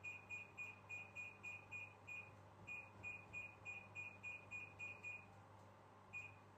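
Electronic alarm beeping: a rapid train of short, high beeps, about three a second, with a brief pause midway, stopping about five seconds in, then one more beep near the end.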